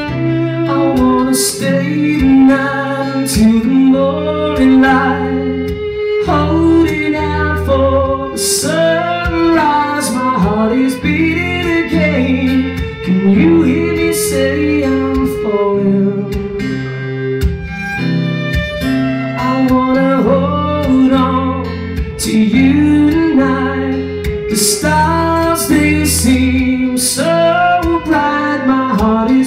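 Live acoustic duet: a violin plays a wavering melody over a strummed acoustic guitar.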